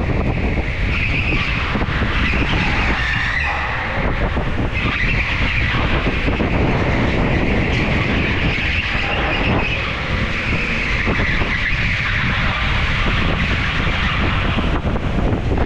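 Go-kart driven at speed, its steady running rumble joined by stretches of tyre squeal through the corners.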